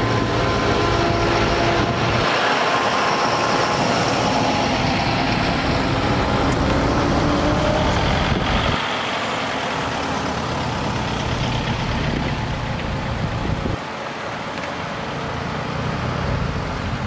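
Slow-moving road vehicles driving past one after another: a big Fendt farm tractor's diesel engine running close by at first, then a motorhome, a classic car and a small utility vehicle. The engine and road noise stays steady, easing slightly about halfway through.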